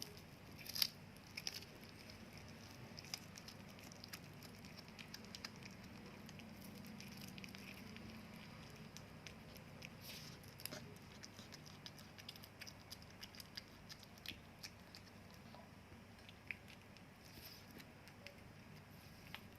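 Cat eating, with soft, irregular clicks and smacks of chewing throughout and one sharper click about a second in.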